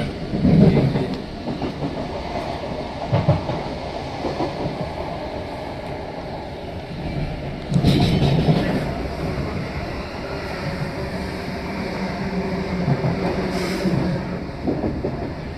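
A train running through the station: a steady rumble with wheels knocking over rail joints, including louder knocks about half a second and three seconds in and a louder burst around eight seconds in.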